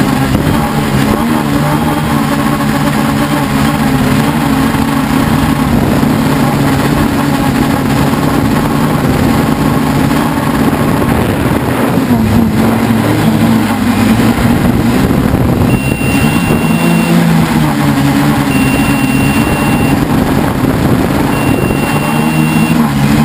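Helimax Form 500 quadcopter's electric motors and propellers droning in flight, the pitch wavering as the motors speed up and slow down. From about two-thirds of the way in, a thin electronic beep sounds for about a second at a time, repeating every two to three seconds.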